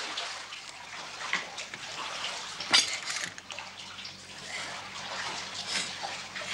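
Water splashing and dripping from a broken water pipe where a tap has snapped off. A few light clicks and one sharper click about three seconds in.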